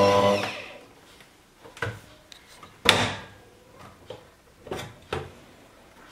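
Background music fades out, then a few short clicks and clunks from a tilt-head stand mixer being handled as its head is released and raised off the bowl. The loudest clunk comes about 3 s in.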